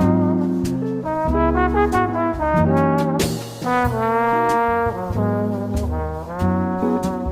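Music led by brass instruments over bass and drums, with a cymbal crash about three seconds in.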